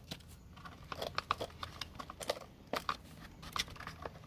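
Scattered light clicks and short rustles from handling a belt sander as its old, slackened sanding belt is worked off the rollers by hand.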